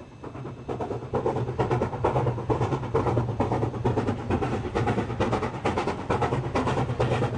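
SY-class 2-8-2 steam locomotive working a passenger train, its exhaust beating rapidly. It fades up over the first second and then holds steady.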